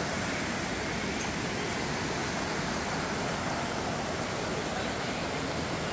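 Steady rush of a rocky mountain stream, water running over boulders.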